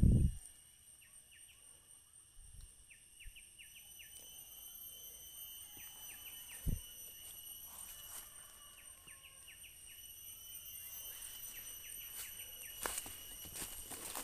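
Night insect chorus: steady high-pitched trilling at several pitches, with short falling chirps scattered through it. A dull thump comes right at the start and another about seven seconds in, and rustling footsteps in dry leaf litter pick up near the end.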